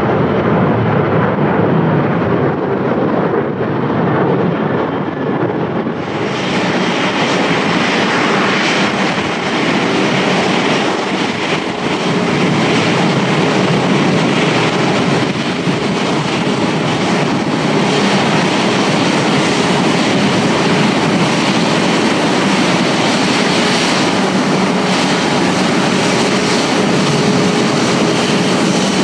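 Jet airliner noise: a Boeing 737-800 on its takeoff, then, after an abrupt cut about six seconds in, an Airbus A320 landing, with steady loud jet noise.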